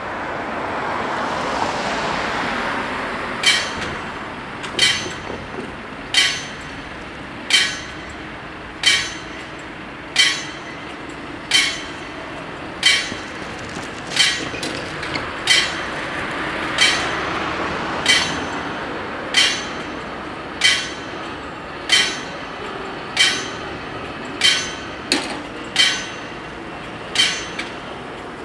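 Italian level crossing warning bells striking slowly and evenly, about one stroke every 1.3 seconds, starting about three seconds in, with now and then two strokes close together. The bells warn that a train is approaching the crossing.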